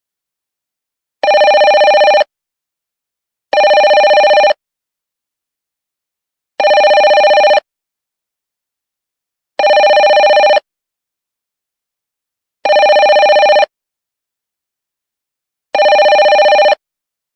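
Telephone ringing: six rings of about a second each, with about two seconds of silence between most of them.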